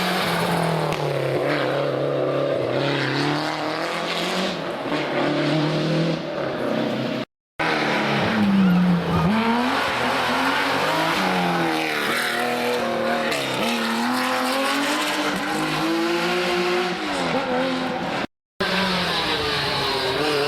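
Historic rally cars driven hard on a special stage, engines revving up and dropping back again and again through gear changes. Two abrupt silent breaks split it into three passages.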